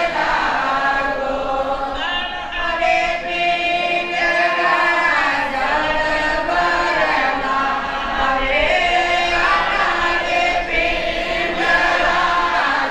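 A group of voices singing a devotional chant together, with long held notes.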